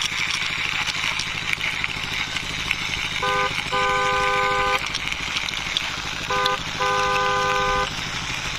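Truck engine sound effect running steadily with a pulsing rumble, as a toy truck is pushed by hand. A two-note truck horn sounds twice, each time a short toot followed by a longer blast of about a second.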